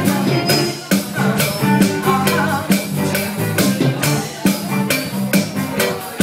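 Music with a steady beat, about two percussion hits a second over sustained pitched notes.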